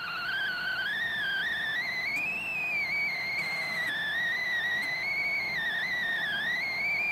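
Macintosh LC II's internal speaker squealing: a continuous high tone whose pitch drifts slowly up and down, with fainter overtones above it. It is a horrible sound from a computer that is otherwise working, a fault still to be traced.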